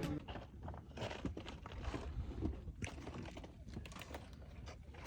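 Faint, irregular crunching and tapping of a hiker's footsteps on a stony trail, over a low rumble.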